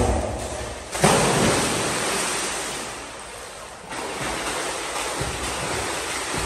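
A person jumps into a swimming pool: a big splash about a second in, with water churning and dying away, then the steady splashing of front-crawl strokes.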